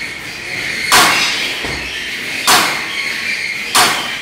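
Three loud, sharp bangs about a second and a half apart, like hammer blows, with a steady high whine between them.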